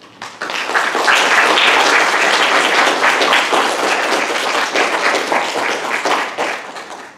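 Audience applauding: many hands clapping, swelling quickly at the start and fading away near the end.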